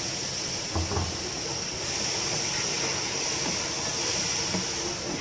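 Tomato paste sizzling in hot oil in a cooking pot, a steady hiss, as a wooden spoon stirs it through the onion and spice masala, with a couple of knocks of the spoon against the pot about a second in.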